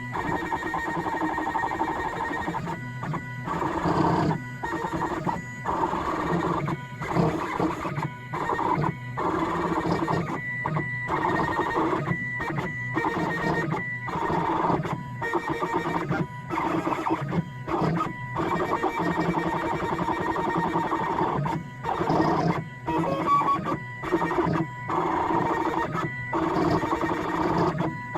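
CNC machine's stepper motors whining through a run of short moves, the whine cutting out briefly between moves about once a second.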